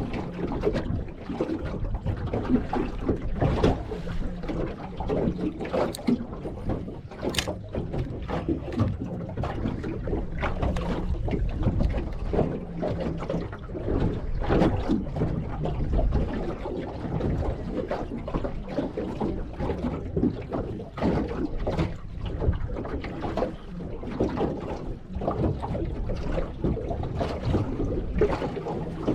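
Wind buffeting the microphone on a small fishing boat, with water sloshing against the hull; two sharp clicks sound about six and seven seconds in.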